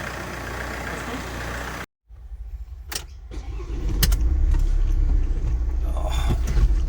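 Ford Transit 2.2 L turbo-diesel engine idling. After an abrupt cut, a couple of sharp clicks are heard, then the diesel runs as a low rumble that grows louder about four seconds in.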